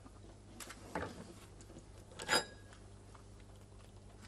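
Quiet room with a steady low hum, broken by a few faint short handling noises. The sharpest is a brief click a little over two seconds in.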